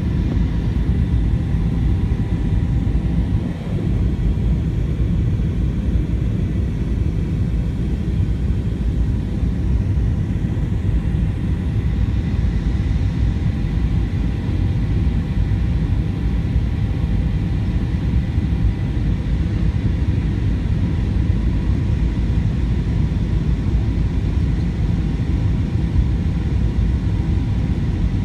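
Steady low rumble of an Airbus A320-200's engines and rushing air, heard inside the passenger cabin during the approach, with a few faint steady hums above it.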